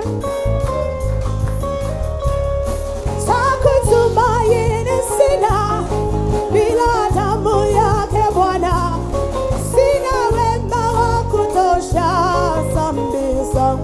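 Live gospel worship music: a band with drum kit plays steadily, and from about three seconds in a woman's lead voice sings wavering, sliding runs over it.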